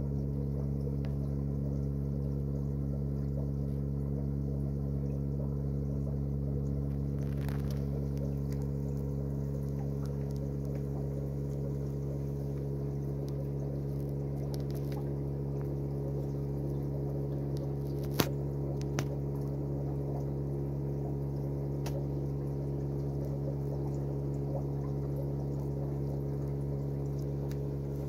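Aquarium pump running with a steady, even hum and a faint watery trickle. One sharp click about two-thirds of the way through and a smaller one a second later.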